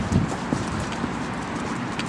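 Footsteps on paving slabs: a few low, irregular thumps while walking, over a steady hiss.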